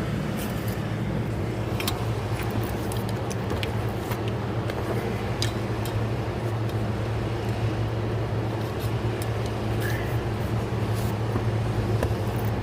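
Scattered light clicks and rustles of a steering-column wiring harness being handled and pulled back out, over a steady low hum.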